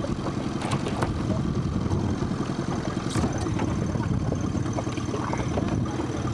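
Small boat's outboard motor idling as a steady low rumble, with a few light splashes of water.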